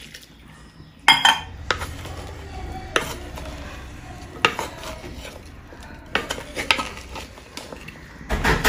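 A spoon stirring chopped tender jackfruit with spices and water in a clay pot, with scattered clinks and scrapes against the pot and a busier run of them near the end.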